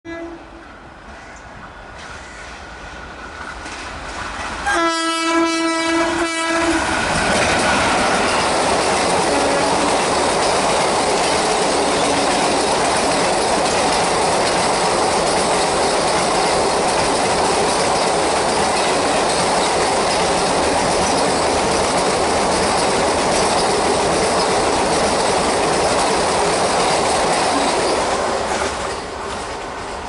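A WAP4 electric locomotive blows its horn in one long blast of about two seconds as it comes up, and the 24-coach Kerala Express passes at speed. The rush of wheels on rails stays loud and steady for about twenty seconds and fades near the end as the last coach goes by.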